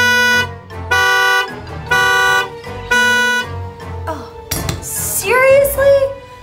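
Car horn honking four times, evenly spaced about a second apart, each blast about half a second long. Near the end a woman's short vocal sound follows.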